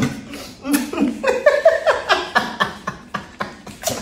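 A person laughing, a run of short high-pitched notes through the middle, with scattered light clicks.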